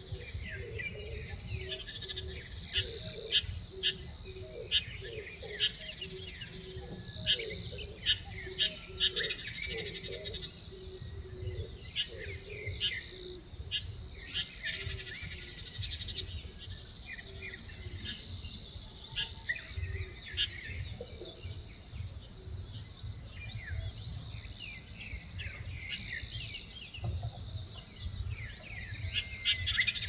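Wild birds chirping in woodland: many short, sharp high calls over a steady high-pitched hum, with a low note repeating about twice a second through the first half.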